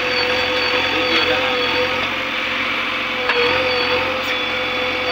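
Diesel engines of a JCB 3DX backhoe loader and a farm tractor running steadily, with a constant whine over the engine noise as the backhoe dumps a bucket of soil into the tractor trolley and swings back.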